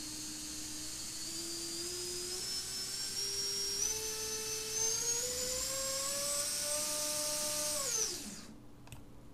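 Racerstar 2205 2300 kV brushless drone motor spinning on a motor test, its whine rising in small steps as the throttle is raised, then cut about eight seconds in and spinning down quickly. The motor is being checked for the noise and vibration the owner says it has developed after four months of use.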